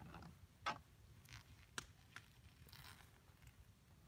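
Faint clicks and crackles of a boiled Murray crayfish's shell as its claws and legs are pulled apart by hand, a few sharp ticks over near silence.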